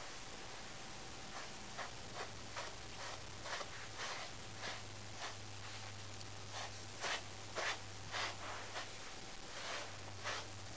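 Brush strokes through a Siamese cat's fur: short scratchy swipes about twice a second, a few louder ones in the middle.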